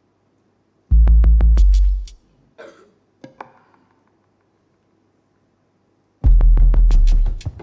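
Sparse electronic music score: two loud, deep synthesizer bass notes, each about a second long and laced with crackling clicks, separated by several seconds of near silence, with a couple of soft clicks in between.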